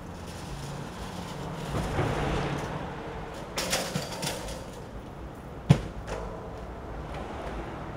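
A few clattery rattles and clanks, then one sharp, loud knock a little before six seconds in, over a steady low street hum.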